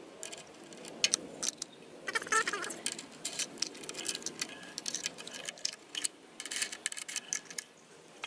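Small metal clicks, clinks and rattles, many in a row, as a cut-off disc, its flange nut and a spanner wrench are handled and fitted onto an angle grinder.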